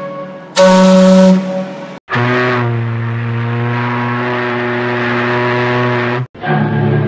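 Ship's steam whistles sounding one after another. First a short, loud blast of SS Nomadic's whistle about half a second in. Then SS Traffic's lower-pitched whistle, held steadily for about four seconds and cut off abruptly. Near the end the whistle of RMS Mauretania begins.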